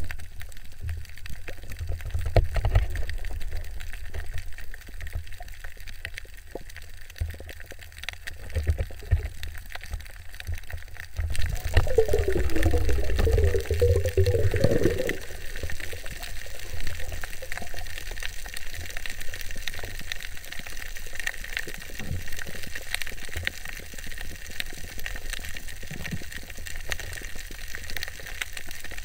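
Underwater sound picked up by an action camera in its waterproof housing while a spearfisher swims: a low, muffled rumble of water moving over the housing with occasional knocks. About twelve seconds in, a brighter hiss sets in, and a wavering gurgle runs for about three seconds.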